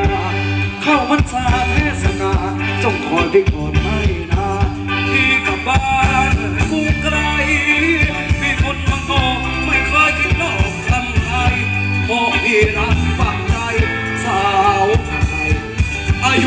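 Live Thai ramwong band playing a dance song, a singer over a steady drum and bass beat.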